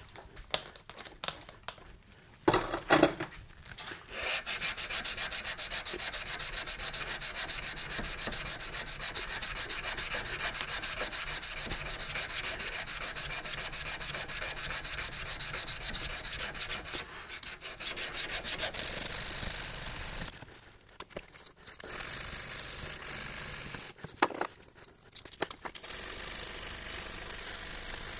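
Hand sanding a forged steel knife blade with sandpaper: quick, steady back-and-forth rubbing strokes that start about four seconds in and pause briefly twice near the end. Before that come a few clicks and a short squirt from a spray bottle.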